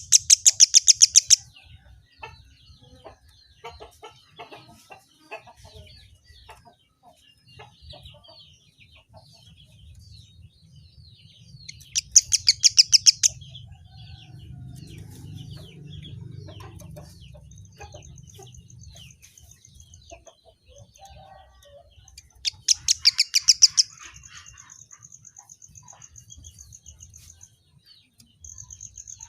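Kemade songbird calling: a constant stream of small high chirps, broken three times by a loud, rapid rattling burst about a second long. A thin, high, evenly pulsed trill is held for several seconds at a time in the second half.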